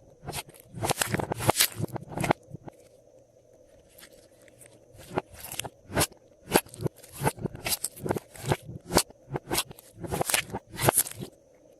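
Glossy slime being squeezed and mixed by hand, giving crisp popping, crackling clicks in quick runs, with a short lull about a third of the way in.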